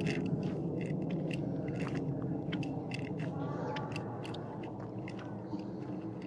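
A large flock of crows gathering to roost: a dense, continuous din of many short overlapping calls, easing slightly toward the end.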